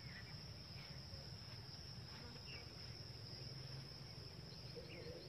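Faint, steady high-pitched chirring of crickets in grass, one unbroken trill, over a low rumble.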